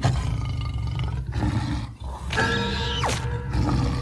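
Low, rumbling snoring of a sleeping cartoon crocodile, breaking off briefly about halfway. Cartoon music or effect tones join in the second half, with a quick falling tone about three seconds in.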